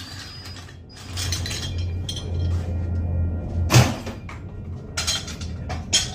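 Hand tools clinking and knocking against metal while a transmission mount support is unbolted. There are a few sharp knocks, the loudest about four seconds in, over a steady low hum.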